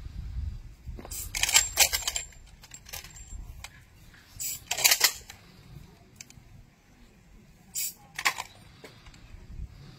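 Honour guard's rifles: three clusters of sharp metallic cracks and clicks, roughly three seconds apart.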